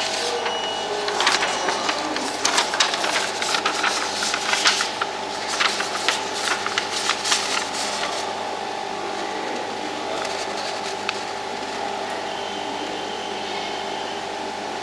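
Fractional laser machine running with a steady hum, its scanner firing in a spell of quick, irregular clicking and rattling from about one second in until about eight seconds in.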